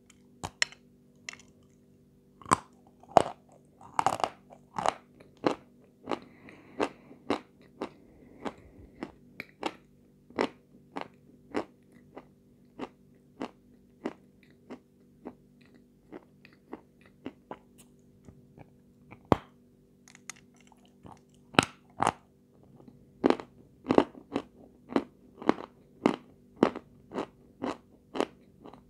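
Close-up biting and chewing of hard lumps of white edible chalk, a sharp dry crunch every half second or so, with the loudest bites in two clusters: early on and again over the last third.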